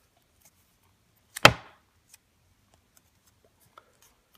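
A single sharp knock about a second and a half in, with a few faint clicks of handling around it.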